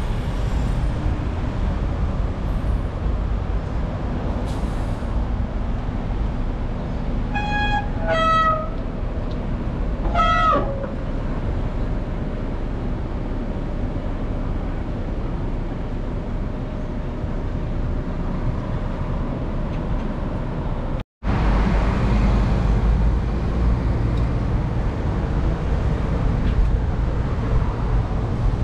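Steady wind and road rumble on a moving action camera during a bicycle ride. A vehicle horn gives two short toots about eight seconds in, and a brief tone falling in pitch follows about two seconds later. The sound cuts out for a moment about two-thirds of the way through.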